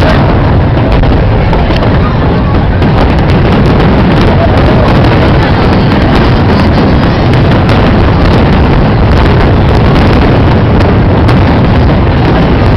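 Fireworks going off in rapid, continuous succession: a loud, unbroken wash of bangs and crackling pops.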